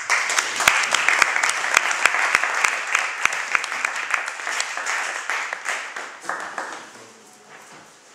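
A small audience applauding, with dense clapping that thins out and dies away about seven seconds in.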